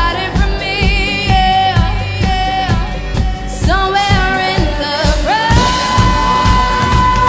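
Live pop music: a singer over a band with a steady drum beat, the voice wavering through a melody and then holding one long note from a little past two-thirds of the way in.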